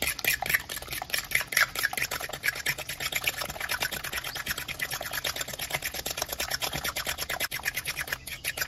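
A fork whisking raw eggs and minced pork in a glass bowl: rapid, steady clicking of the fork against the glass with a wet slapping of the egg.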